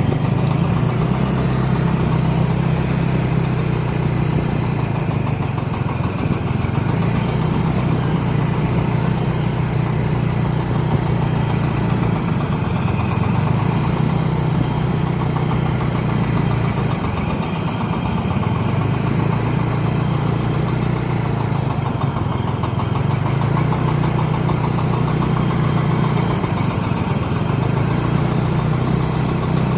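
Engine of a corn sheller machine running steadily, its low hum dipping briefly a few times.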